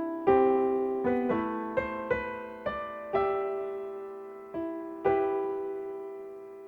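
Solo piano playing a slow melody over sustained chords, each note struck and left to ring and fade.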